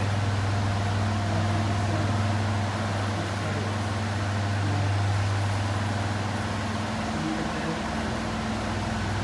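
A steady low hum, a little weaker after about seven seconds.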